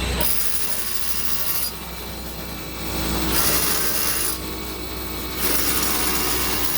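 A large drill boring holes into a house foundation during foundation repair: a steady, loud grinding noise whose high hiss drops out and comes back a few times.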